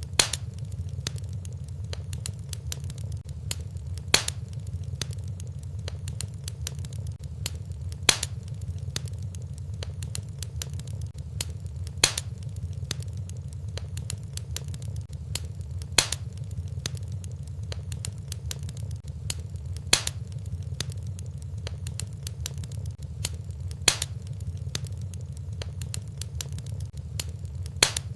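Wood fire in a fireplace crackling, with a steady low rumble under many small ticks and a sharper pop about every four seconds.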